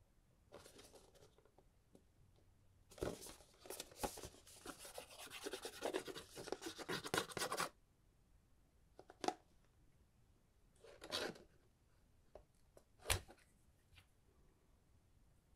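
Hands handling a cardboard perfume box. A light rustle comes first, then about four and a half seconds of dense scratching and rustling against the card. After that there are a few separate clicks and short rustles, the sharpest click near the end.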